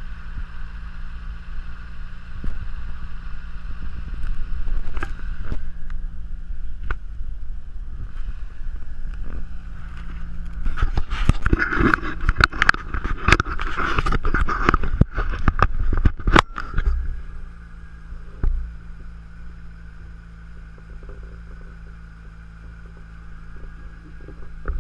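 A steady low engine hum, like a vehicle running, with a dense run of scraping and knocking noises for several seconds about halfway through; it turns quieter after that.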